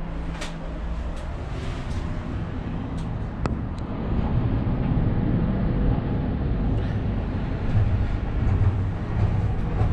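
Emirates Air Line cable car cabin in motion on its rope: a steady low rumble that grows louder about four seconds in as the cabin nears a support tower, with several light clicks before that.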